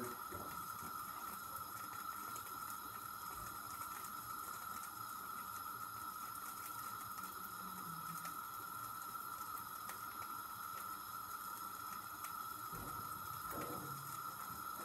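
Steady low hiss of a frying pan cooking on a lit gas burner, with a faint steady high-pitched tone running under it.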